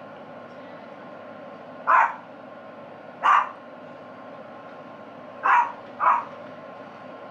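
A dog barking off-camera: four short, loud barks, the last two close together.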